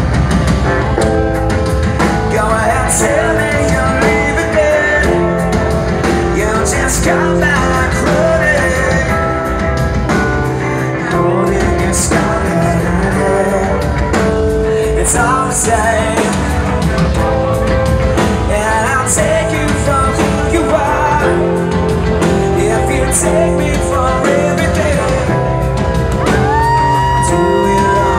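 Live rock band playing: electric guitar, bass guitar and drums with cymbal crashes under sung vocals. A long held note rings out over the band near the end.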